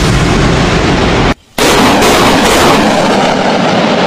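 Truck-mounted multiple rocket launcher firing a salvo: a continuous loud rushing roar of rockets leaving the tubes, broken off for a moment about a second and a half in.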